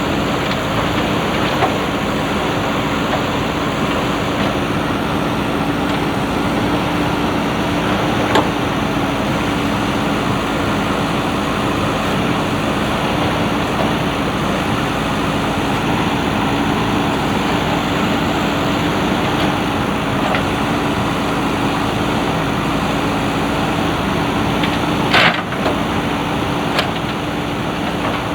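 JCB 3DX backhoe loader's diesel engine running steadily, with a few short knocks, the sharpest a few seconds before the end.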